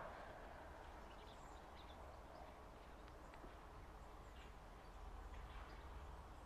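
Faint low rumble of a Class 70 diesel locomotive moving slowly with a rake of tank wagons, growing a little louder about five seconds in, with a few faint bird chirps over it.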